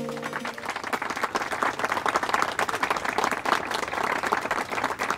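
Crowd applause, a dense even clapping that runs on steadily. A music track's last notes cut off about half a second in.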